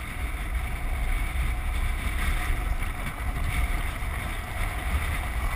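Wind rushing and buffeting on the microphone of a land yacht under sail: a steady noise with a strong low rumble.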